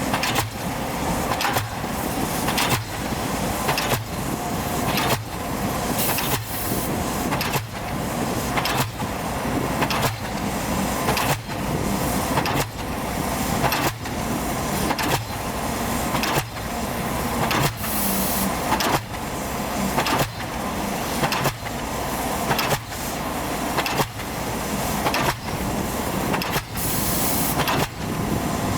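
Pile-driving hammer on an excavator-mounted pile-driver rig striking a pile at a steady rate of about one blow a second, over the steady drone of the machine's engine.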